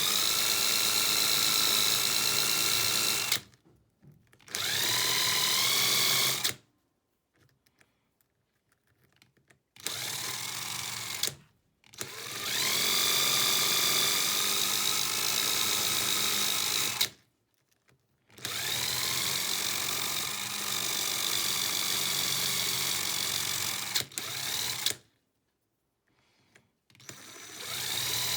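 Small electric power tool used to machine-polish handmade metal spoon lures, switched on and off about six times. Each run spins up with a rising whine, holds steady for a few seconds and stops abruptly, with quiet gaps between runs.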